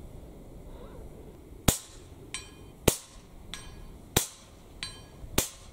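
FX Panthera .25-calibre air rifle fired four times, about a second and a quarter apart; each sharp shot is followed about two-thirds of a second later by the ring of a steel gong target struck at 109 metres.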